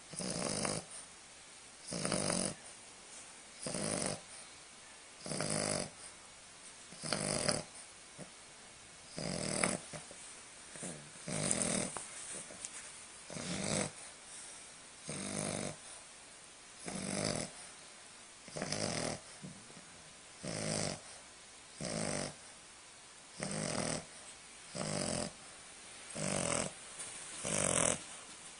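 English bulldog puppy snoring in a steady rhythm, one loud snore about every one and a half to two seconds, typical of the breed's short, flat muzzle.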